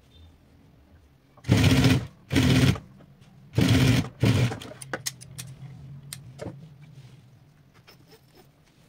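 Industrial lockstitch sewing machine stitching fabric in three short runs of about half a second each, followed by a few light clicks and a low hum that fades out.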